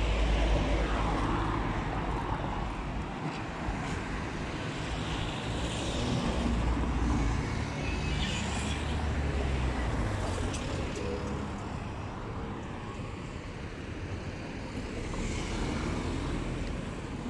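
Road traffic: cars driving past close by one after another, engine and tyre noise swelling and fading as each goes by.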